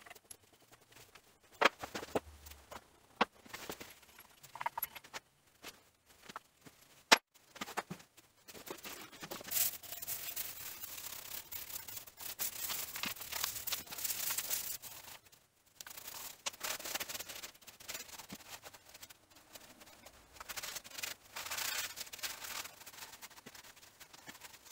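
A shop towel being rubbed and wiped over the cast-iron head of a milling machine, in long scrubbing stretches. A few sharp clicks and knocks come in the first several seconds; the loudest is about seven seconds in.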